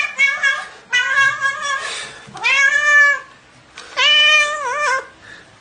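Tabby cat meowing over and over while being handled, several short calls at first, then longer drawn-out meows, the last one wavering near its end.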